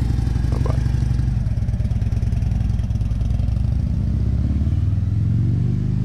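2012 Harley-Davidson Street Glide's V-twin engine running at a steady idle beat, sounding healthy. The revs rise about four and a half seconds in.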